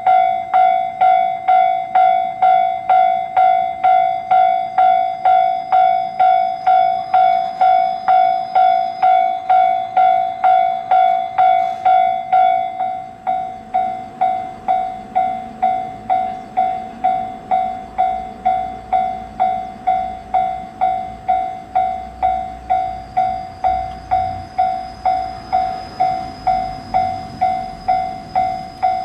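Japanese level-crossing electronic warning bell ringing steadily, about two strikes a second. About 13 seconds in, the bell drops to a lower volume, and a low rumble of a train running past rises under it through most of the rest.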